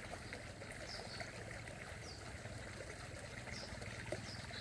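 Faint outdoor ambience: a soft steady hiss over a low hum, with short high chirps about once a second.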